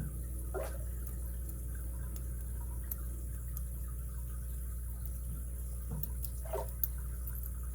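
Faint, sparse metallic clicks of lock picks and a tension tool working in the keyway of an all-brass warded padlock, over a steady low hum.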